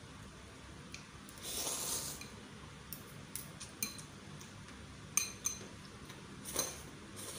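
Metal fork and spoon clinking and scraping against a bowl of chicken noodles, a handful of sharp clinks spread through. Two slurps of noodles come through it: a longer one about one and a half seconds in and a short one near the end.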